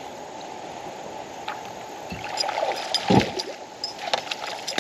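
River water gurgling around a kayak while a hooked shoal bass is brought in. From about halfway there are splashes and sharp knocks, the loudest about three seconds in.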